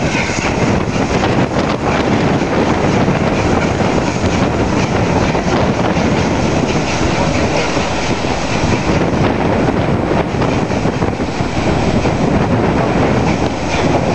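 A train's passenger coaches rolling past at close range: a steady, loud rumble of steel wheels on rail.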